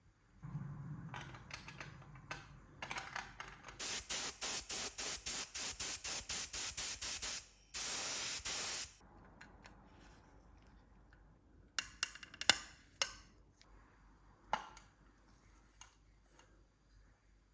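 Aerosol spray can fired in quick short bursts, about four a second, then held for one longer spray of about a second. A few sharp clicks and knocks follow later.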